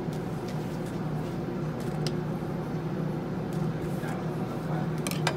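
Steady low machine hum, with a few short sharp clicks about two seconds in and again near the end.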